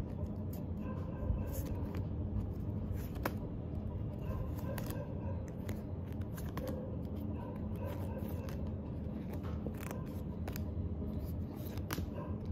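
Pokémon trading cards being slid and flicked from the front of a stack to the back by hand: a string of small sharp snaps and paper rustles at uneven intervals, over a steady low hum.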